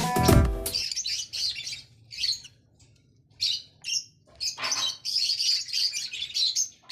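Music stops about a second in. Lovebirds then chirp in quick strings of short, high-pitched chirps, with a quiet pause a couple of seconds in.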